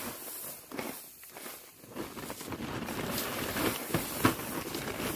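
Scattered rustling and light knocks, the loudest knock about four seconds in.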